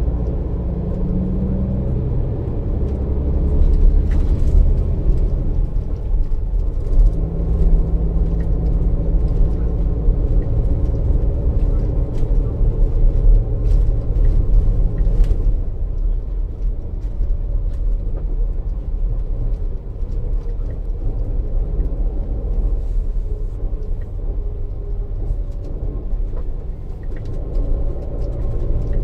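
Neoplan Tourliner coach under way, heard from inside the passenger cabin: a steady low rumble of the rear diesel engine and road noise, with engine tones that shift in pitch now and then. Light rattles and clicks from the cabin come and go, mostly in the first half.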